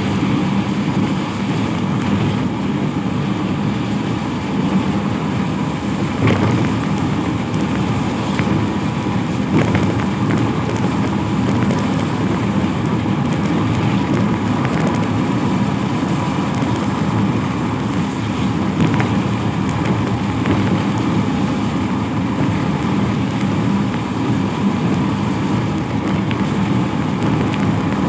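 Steady road noise of traffic on a wet road in the rain, with a few faint knocks.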